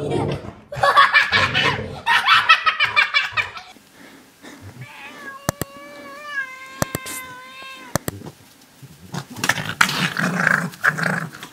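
Domestic cat yowling defensively at a fox: one long, wavering warning yowl of about three seconds in the middle, with a few sharp clicks, between louder, harsher cries at the start and near the end.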